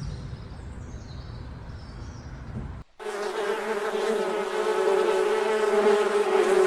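A low rumbling growl, typical of a crocodile. About three seconds in it cuts abruptly to a honeybee's steady, even buzzing hum, which is the louder of the two sounds.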